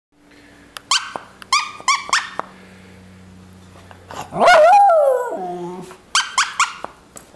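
Miniature schnauzer vocalising in play: bunches of short, high yips, and about four seconds in one long howl that rises and then falls in pitch, the loudest sound.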